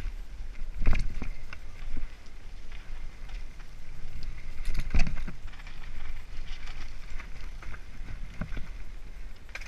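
Mountain bike descending a rough dirt trail at speed: tyres on dirt and stones with the bike rattling and clattering over the bumps, and wind rumbling on the microphone. Two hard knocks from hitting bumps come about one second in and about five seconds in.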